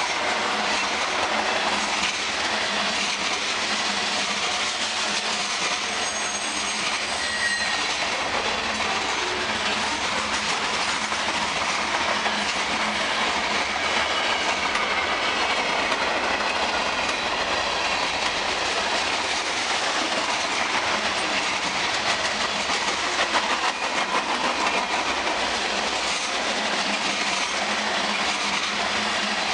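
Loaded freight cars, covered hoppers and tank cars, rolling past at speed: a steady rush of steel wheels on the rails. A faint high squeal comes in about six seconds in and lasts a second or two.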